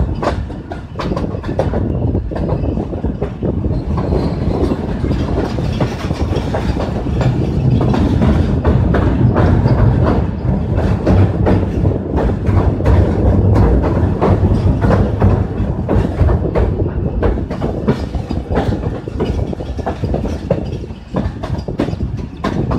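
Passenger train coach running at speed, heard from an open window: a steady rumble of wheels on the rails with a rapid clatter of rail-joint clicks. The rumble grows heavier and louder through the middle as the train crosses a bridge over water.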